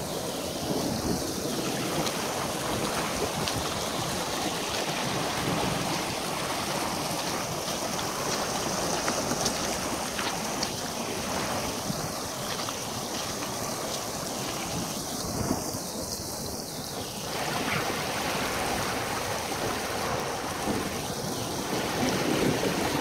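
Muddy rainwater runoff rushing down a roadside ditch and out of a concrete culvert, a steady rush of flowing water that grows a little louder near the end, with wind buffeting the microphone.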